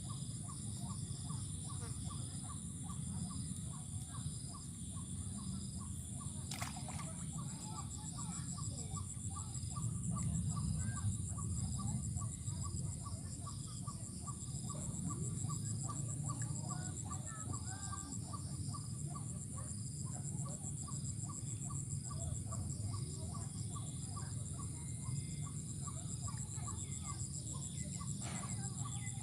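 Rural outdoor ambience: a steady high-pitched insect drone with a regular pulsing chirp beneath it, and chickens clucking now and then. There is one sharp click about seven seconds in.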